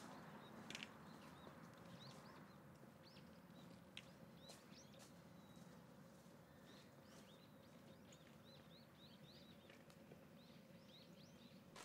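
Very faint small birds chirping, a run of short rising-and-falling calls, over near silence, with a couple of soft clicks.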